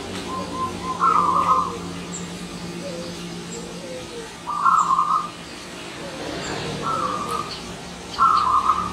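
Zebra dove (perkutut) cooing its song in four short phrases a few seconds apart, over a steady low background hum.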